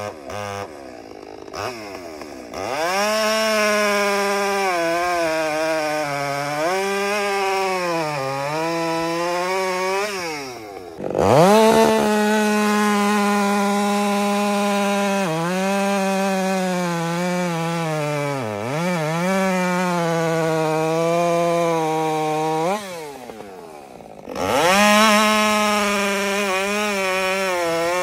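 Stihl chainsaw cutting through a beech log in repeated runs. The engine revs up to full throttle, its pitch sags each time the chain bites into the wood, and it drops back to idle twice between cuts.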